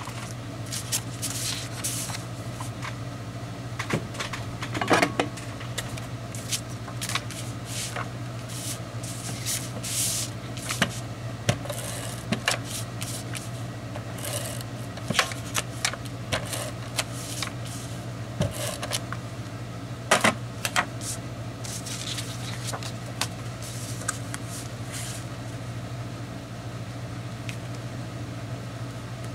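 Paper and cardstock being handled on a cutting mat: sliding, rustling and rubbing, with scattered light taps and clicks and a few sharper knocks near the middle. A steady low hum runs underneath.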